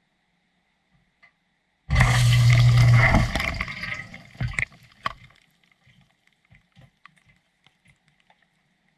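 Water gushing suddenly, with a low hum, for about a second and a half, then tailing off. A click and scattered faint drips and ticks follow.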